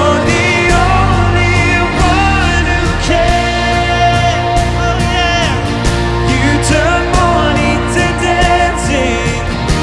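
Worship band playing a Christian worship song, a lead vocal singing a melody with long held notes over bass, keys and drums.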